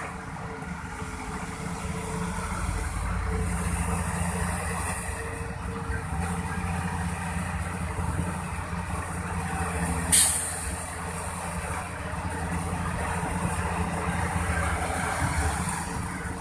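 Heavy diesel machinery engine running steadily at a work site, with a short sharp hiss about ten seconds in.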